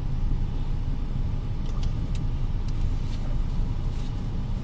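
Steady low road and engine rumble heard inside a moving car's cabin, with a few faint clicks.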